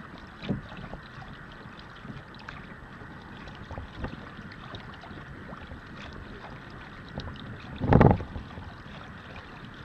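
Water sloshing and lapping around a sailing kayak, with wind on the microphone and scattered small knocks. A short, loud, low thump comes about eight seconds in.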